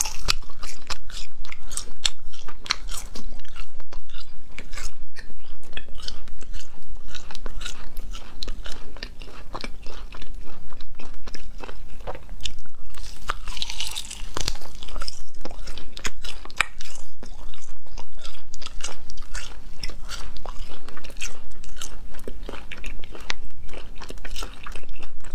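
Close-miked biting and chewing of spicy gluten sheets (la pian latiao), a steady stream of crunches and small mouth clicks.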